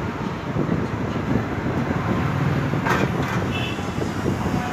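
A sheet-metal inverter cabinet being opened by hand, with one sharp metallic knock about three seconds in, over a steady low rumble of background noise.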